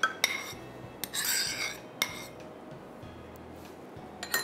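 Kitchen handling sounds: a click at the start, a short rasping rub about a second in, then another click or two, the last near the end.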